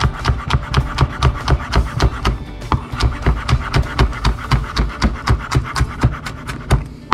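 Kitchen knife rapidly chopping green onions on a wooden cutting board: a steady run of knocks, about four to five a second, as the onion is minced fine.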